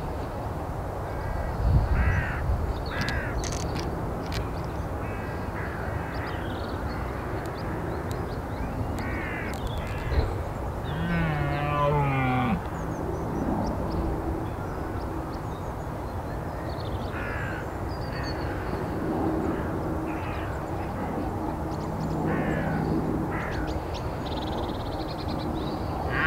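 A red deer stag gives one deep rutting roar lasting about a second and a half, starting about eleven seconds in. Crows caw now and then throughout.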